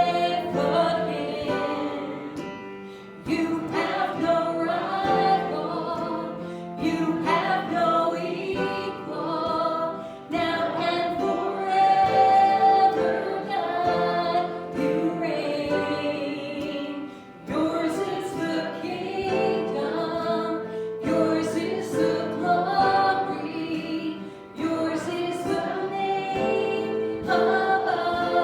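Congregation or worship choir singing a gospel hymn with instrumental accompaniment, in phrases separated by short breaths.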